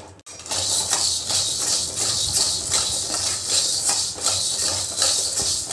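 Dry cowpeas rattling and scraping in an aluminium kadai as a spatula stirs them during dry-roasting: a fast, steady rattle of the beans against the pan, starting just after a short break at the beginning.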